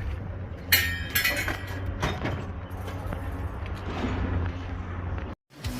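Scrap metal clattering and clinking over the steady low rumble of a running truck engine, with the loudest crash about a second in and lighter clinks after it; the sound cuts off abruptly near the end.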